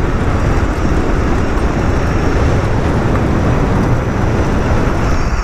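Steady wind rumble on the microphone from riding an e-bike, with no clear pitch and no change in level.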